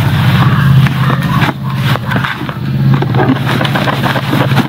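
Soil mix of garden soil, rice hull and sand being stirred with a small trowel in a plastic basin: irregular gritty scraping and rustling. Under it a steady low motor hum, louder than the mixing.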